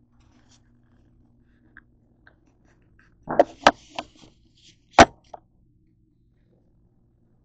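Hard knocks and clatter of a peanut butter jar and other items being set down and handled on a kitchen countertop: a quick cluster of knocks about three and a half seconds in, then one sharp, louder knock about five seconds in.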